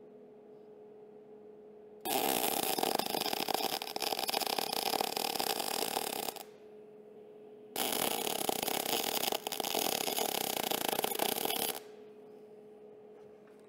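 Gas metal arc (MIG) welding arc crackling steadily in two runs of about four seconds each, the first starting about two seconds in, with a pause of about a second and a half between. A faint steady hum sits underneath between the runs.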